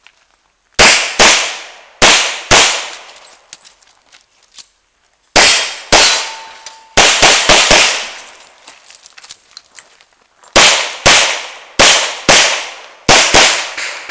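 Revolver shots fired in a practical shooting stage: about fifteen shots in three strings separated by pauses of about three seconds, mostly in quick pairs about half a second apart. Each shot has a short echoing decay.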